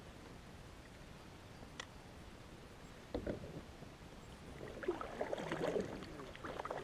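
Kayak paddle stroke: a single knock about three seconds in, then the paddle blade dipping and splashing in the water, with drips and gurgles, for about two seconds near the end.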